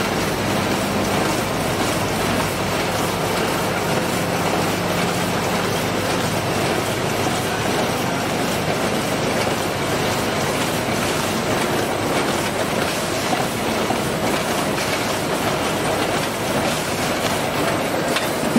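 SUN-520C automatic vertical sugar packing machine running, a steady continuous mechanical rattle and whir from its feeder and packing mechanism.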